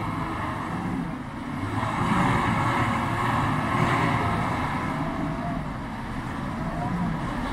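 4x4 engine running under load as a pickup bogged in mud tries to pull free on a tow line, getting louder from about two seconds in and easing off after about five seconds.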